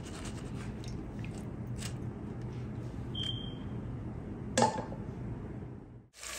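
Light clicks and handling of a metal mesh strainer lifted off a glass bowl of broth, over a steady low hum. A short high beep comes about three seconds in, and a single sharper clink about a second and a half later.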